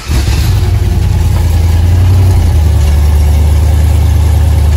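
Car engine cold-started, coming in abruptly and running at a loud, deep, steady idle.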